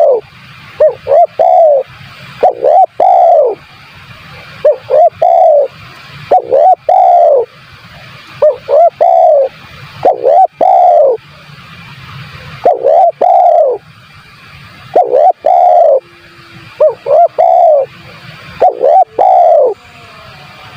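Spotted dove (tekukur) cooing repeatedly: phrases of a few short coos ending in a longer drawn-out coo, repeating every couple of seconds.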